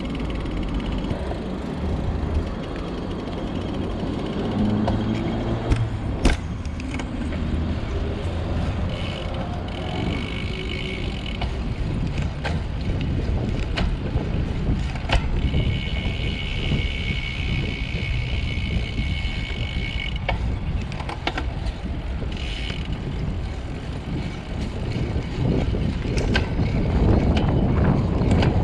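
Road bike ridden along the road: steady wind and road rumble, a few sharp clicks, and a steady high whine that comes twice for a few seconds.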